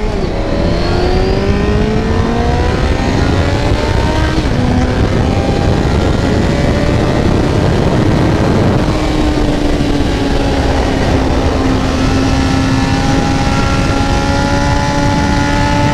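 1993 Honda CBR900RR Fireblade's inline-four engine under way, climbing in pitch as it pulls through the revs for the first few seconds, then holding a steady pitch at cruising speed. Heavy wind rush on the microphone runs under it.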